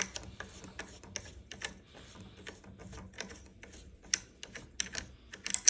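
Quick, irregular small clicks of a black plastic hand knob being unscrewed from the threaded stud that holds a ski bike's ski on, with a louder flurry of clicks near the end.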